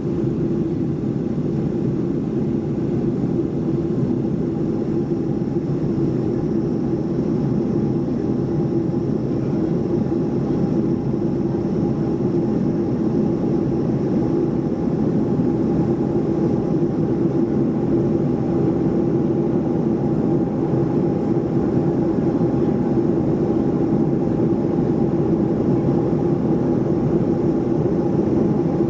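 Steady cabin drone of a Boeing 737-400 in flight, its engines and airflow heard from inside the cabin as an even rushing noise with a constant low hum in it.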